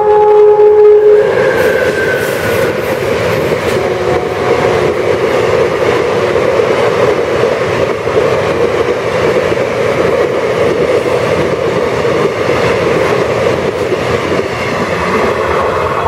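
An express train's passenger coaches run past at about 110 km/h behind a WAM-4 electric locomotive, with a steady rattling rumble of wheels on rail. The locomotive's horn, held from before, stops about a second in.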